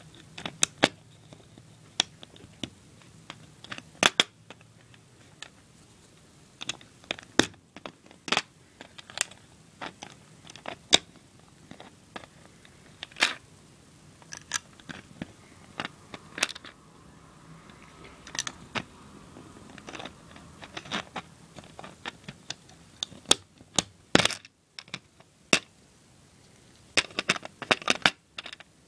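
Plastic Lego bricks and tiles clicking and snapping as they are pressed onto a baseplate and handled, in many sharp, irregular clicks.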